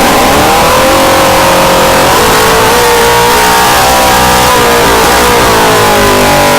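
Suzuki GSX-R400 inline-four engine running with no exhaust fitted, loud and raw from the open ports. It has just fired up on a bench test: the pitch climbs in the first second, then holds at a fast idle with slight wavering.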